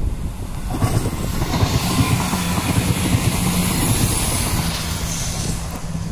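ScotRail Class 170 Turbostar diesel multiple unit passing close by. Its engine holds a steady low note over the continuous rumble and clatter of wheels on the rails.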